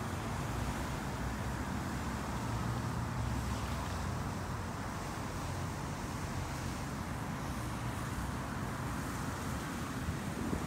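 Steady outdoor noise, mostly wind rumbling on the microphone, with a continuous hiss.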